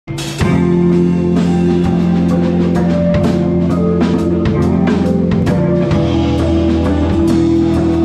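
Live rock band playing, cutting in mid-song: a drum kit keeps a steady beat of drum and cymbal hits under electric guitars holding sustained chords.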